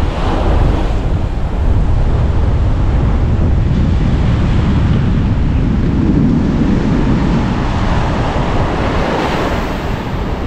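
Surf breaking on the beach, with wind buffeting the microphone.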